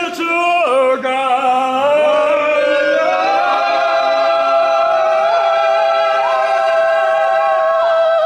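Voices singing without instruments, moving through a few notes, then holding one long note for about five seconds that cuts off abruptly at the end.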